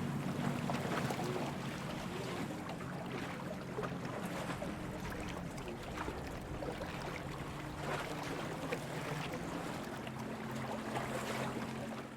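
Water lapping and splashing gently in small irregular strokes, over a steady low hum.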